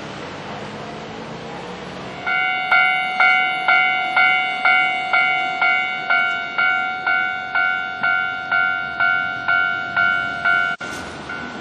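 Japanese railway level crossing warning bell starting up about two seconds in and clanging steadily at about two strikes a second, signalling that a train is approaching and the crossing is closing. Before it starts there is a steady rushing noise; near the end a sharp click breaks it off, and a fainter ringing goes on.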